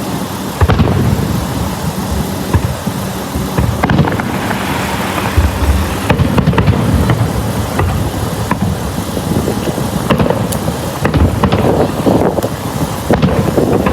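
Fireworks going off at a distance: a series of sharp pops and bangs, several seconds apart, over a constant low rumble.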